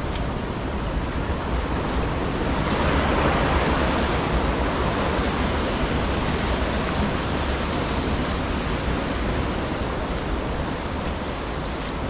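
Running water of a mountain stream, a steady rushing noise that swells about three seconds in and then slowly eases.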